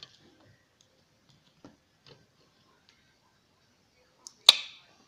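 A few faint clicks, then a single sharp knock near the end, as a plastic toy figure is set down on a wooden tabletop.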